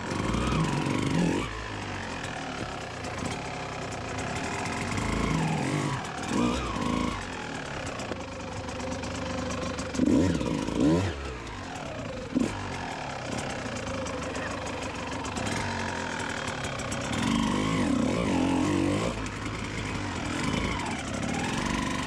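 A Kawasaki KX125's 125 cc single-cylinder two-stroke engine idles and is blipped into short revs several times, about once every few seconds, while the dirt bike is worked slowly over large rocks. There is a single sharp knock a little past halfway.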